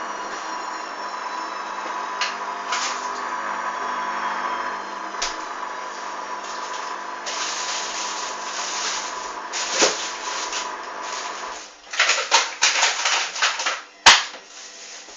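Hoover DYN 8144 D washing machine running with a steady motor hum and whine. The hum stops about 11 s in, followed by a series of clunks and clicks and one sharp knock near the end.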